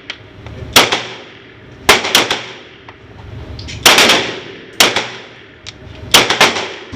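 A string of pistol shots, about seven, fired at uneven intervals, some in quick pairs, each with a short ringing tail.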